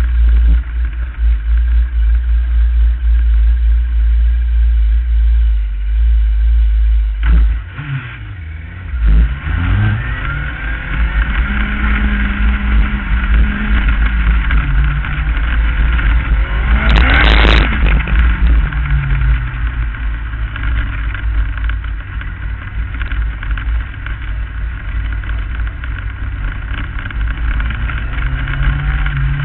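Onboard sound of a non-wing Lightning Sprint racing car's engine running hard in a race, with its pitch and loudness dropping as it eases off about seven seconds in, then climbing again as it accelerates. A brief loud rush of noise comes about seventeen seconds in.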